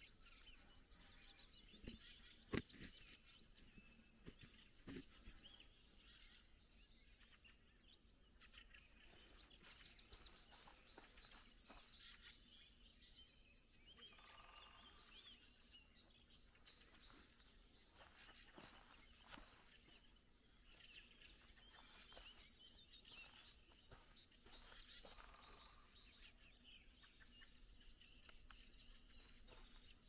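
Faint dawn chorus of many songbirds chirping and trilling. There is a single sharp click about two and a half seconds in.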